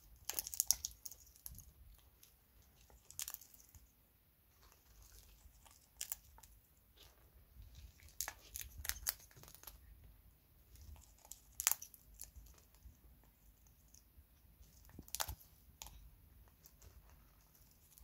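African grey parrot cracking and crunching seeds in its beak while rooting through a plastic bag of seed mix: faint, irregular cracks and rustles, with a few sharper, louder cracks, and crinkling of the plastic bag.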